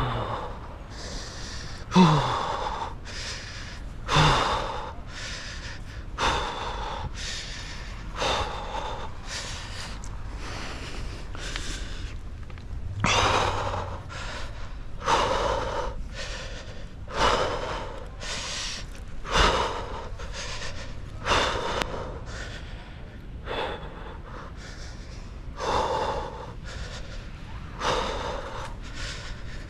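A climber's heavy breathing close to the microphone, a hard breath roughly every two seconds, the first few with a short falling grunt: the breath of exertion while climbing down a tree.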